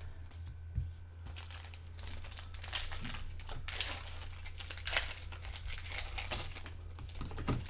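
Rustling and crinkling of basketball trading cards and their pack wrappers being handled, in many small irregular crackles, over a low steady hum.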